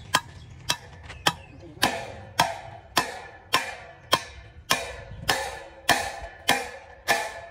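Steady hammering, about two blows a second, each blow ringing briefly.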